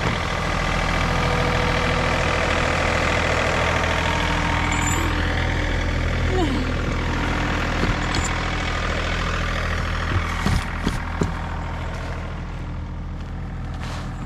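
John Deere compact tractor's diesel engine running steadily while the front loader clears snow, growing slightly fainter near the end.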